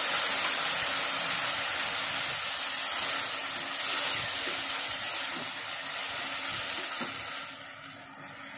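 Sliced ivy gourd sizzling in oil and freshly added water in a non-stick pan while a wooden spatula stirs through it. The sizzle grows fainter near the end.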